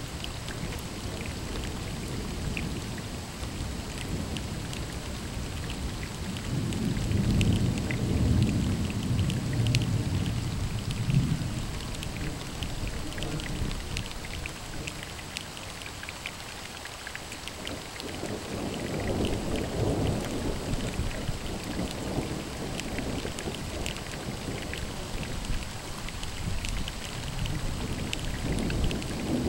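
Thunder rumbling over steady rain. The rumbles come about a quarter of the way in, again past the halfway mark, and a third begins near the end.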